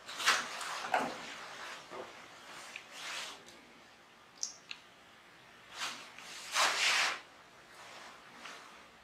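Rustling of a stiff satin dress as its full skirt is swished and lifted, in several short swishes, with a longer one about two-thirds through.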